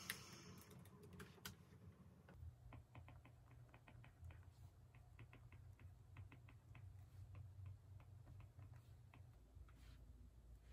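A deep sigh at the start, then faint typing on a laptop keyboard, soft key clicks a few a second that stop shortly before the end.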